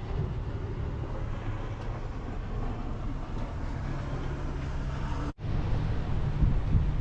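Ram 2500 Power Wagon pickup driving, a steady low road-and-engine rumble. The rumble breaks off for an instant about five seconds in, then resumes.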